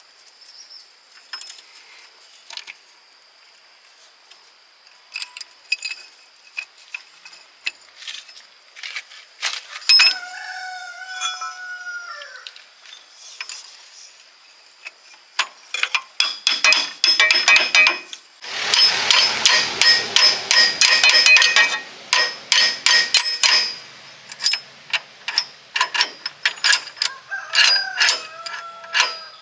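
Metal clinking and clanking of tools and gearbox parts being handled, a dense run of ringing metallic knocks in the middle. A rooster crows twice, about a third of the way in and near the end.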